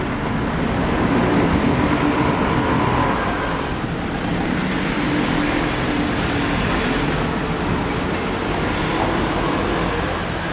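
Street traffic: motor vehicles passing on a city street, a steady wash of engine and tyre noise.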